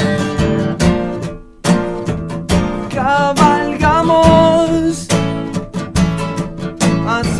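Nylon-string acoustic guitar strummed in a steady rhythm, breaking off for a moment about a second and a half in before the strumming resumes.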